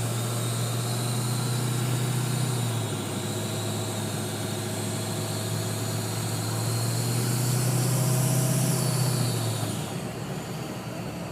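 Ford 6.0L Power Stroke V8 turbo-diesel running, with a high turbo whine over an airy hiss that the owner takes for air escaping somewhere in the turbo intake. The sound swells for a few seconds past the middle, then the whine drops away near the end.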